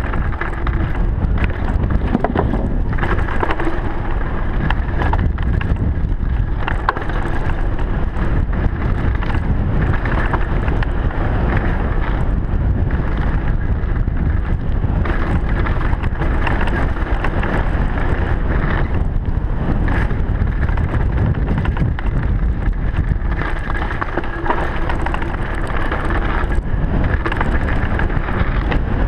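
Wind rushing over a GoPro microphone on a downhill mountain bike at speed, with the tyres rumbling over rocky dirt and the bike clattering through many short knocks and rattles on loose stones and roots.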